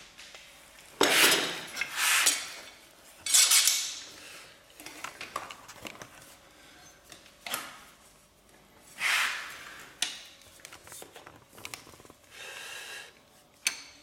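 Metal caulking gun being handled and loaded with a silicone cartridge: short bursts of metallic clatter and clicks, five louder ones in the first ten seconds, with quieter scuffs and handling noises between them.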